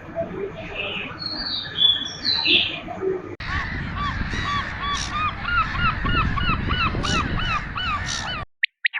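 Bird calls from two spliced recordings. First come high chirping calls. About three and a half seconds in there is a sudden cut to a fast series of repeated pitched calls, about two a second, which stops abruptly near the end.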